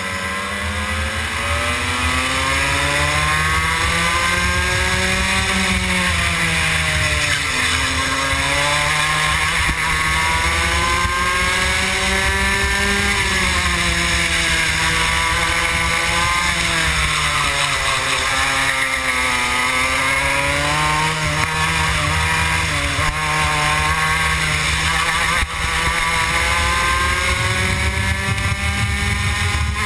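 Rotax Max 125 cc two-stroke kart engine racing, heard onboard. The engine note climbs for several seconds, then drops sharply as the kart slows for a corner, several times over.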